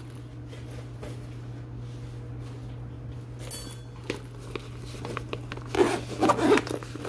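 Fabric tech cases being handled: soft rustling and light knocks, with a short zipper-like rasp about halfway through and louder rustling near the end.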